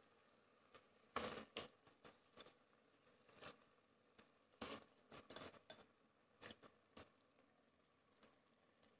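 Faint, irregular rustles and scrapes as rice is pushed by hand out of a steel bowl and drops into an electric rice cooker pot.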